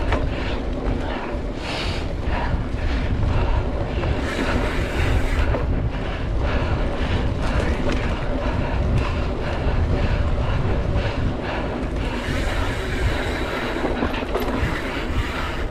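Mountain bike ridden at speed on a dirt trail: wind buffeting the microphone over a steady low rumble, with frequent short rattles and knocks from the bike going over bumps.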